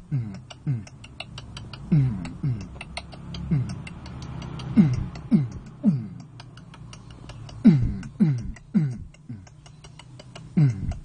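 Mouth beatboxing: deep bass kicks that drop sharply in pitch, over rapid mouth clicks and ticks in a steady rhythm.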